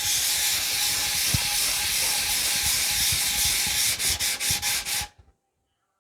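Knife handle scale rubbed by hand on sandpaper stuck to a flat surface, flattening it: a steady scratchy sanding that breaks into about six short quick strokes near the end, then stops suddenly.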